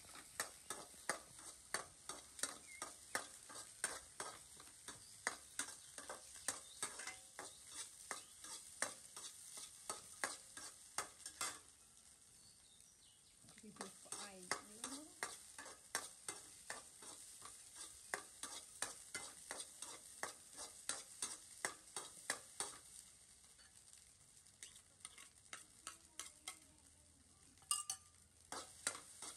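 Metal spatula scraping and knocking against a stainless steel wok in quick repeated strokes, over a steady sizzle of rice and carrots stir-frying in hot oil. The strokes stop briefly twice while the sizzle goes on.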